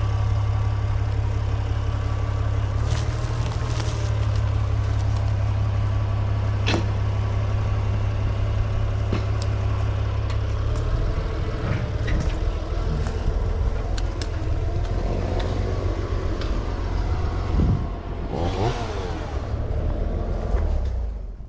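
Tractor engine running steadily under load while pushing a tree over, with several sharp cracks over the engine noise.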